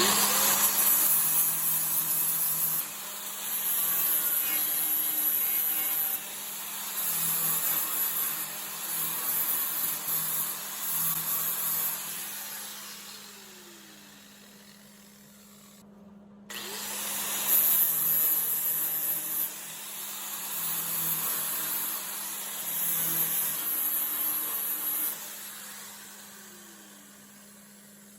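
A grinder grinding down MIG welds on a sheet-steel cowl patch panel in two long runs, loudness rising and falling as the wheel bears on the metal. Each run ends with the grinder winding down in a falling whine, and the second starts with a rising spin-up. A steady low hum runs underneath.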